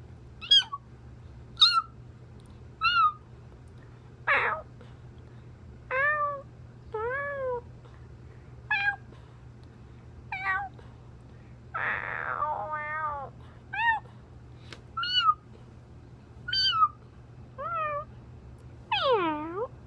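A person imitating a cat: a long run of short meows, about one a second, most rising and falling in pitch, with a couple of breathy, hiss-like ones about four and twelve seconds in.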